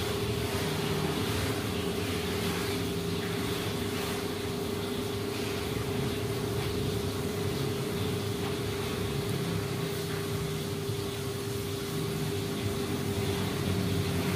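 Steady mechanical hum with one constant mid-pitched tone over a low, wavering rumble.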